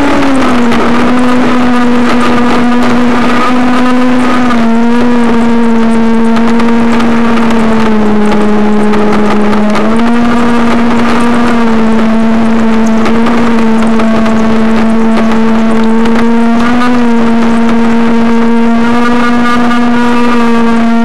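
Model A-10 Warthog's motor running at part throttle, a loud steady whine. The pitch drops as it begins, shifts slightly a few times and rises again near the end with the throttle.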